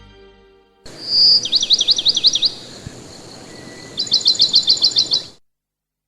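A songbird singing: a short high whistle, then a run of quick swooping notes, and after a pause another rapid run of about ten notes, cut off suddenly. The fading end of a song is heard in the first second.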